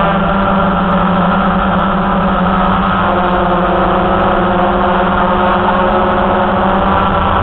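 Small XK Detect quadcopter's electric motors and propellers running with a steady, even hum at a nearly constant pitch, heard close up from its own onboard camera.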